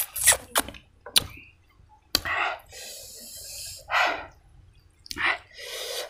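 Close-miked eating: sharp crisp crunches from biting into a raw vegetable slice in the first second, then chewing with several loud, short breaths through the nose and mouth.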